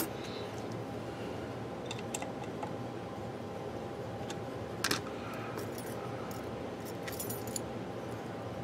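Scattered light metallic clicks and clinks, with a louder pair about five seconds in, from a small metal tool working at a Fender Telecaster's bridge pickup during pickup-height adjustment, over a steady background hum.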